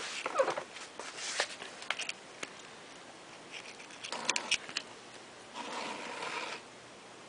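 A lop rabbit nudging and shoving an empty plastic food container about on a tile floor: scattered light clicks and taps in clusters, then a short scraping rustle near the end.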